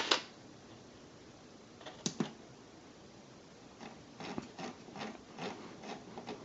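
Small clicks and knocks from hands working bench test gear while the supply voltage is turned up: one sharp click at the start, another about two seconds in, then a run of soft ticks, a few a second.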